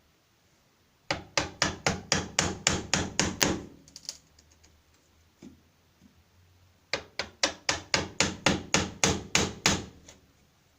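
Hammer blows knocking out a hole in a wooden door frame for a deadlock's keep: two quick runs of about ten sharp strikes each, roughly four a second, with a single knock between them.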